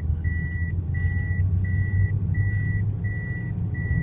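Car's reverse warning beeper sounding a steady high beep about three times every two seconds, over the low rumble of the engine and tyres as the car drives backwards down the road.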